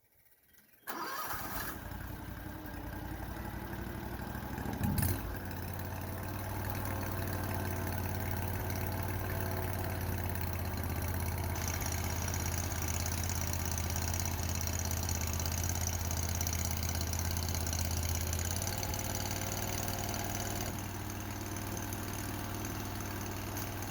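Mini skid steer's engine starting: it turns over, catches with a jolt about five seconds in, then runs steadily at idle, with a high whine joining in for a while.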